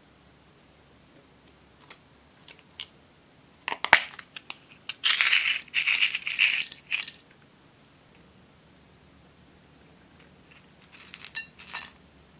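Small decorative charms and beads poured from little containers into a glass bowl of clear glue, clattering and clicking as they tip out. There are two clusters: a longer one about four to seven seconds in, and a shorter one near the end.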